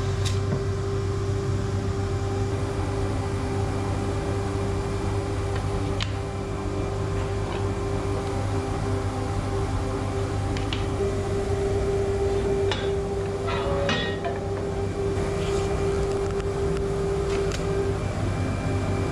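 A workshop machine's motor running steadily with a constant hum, with a few light clicks and knocks scattered through it.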